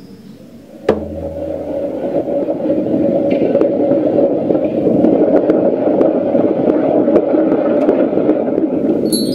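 Sound-design texture in a composed soundtrack: a sharp click about a second in, then a dense, grainy noise with no clear pitch that swells louder over several seconds and holds.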